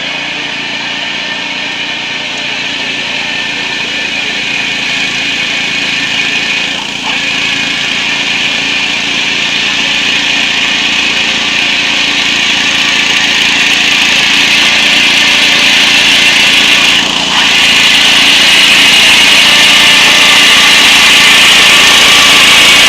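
Small rice combine harvester running steadily, its engine and machinery noise growing gradually louder, with two brief dips in level.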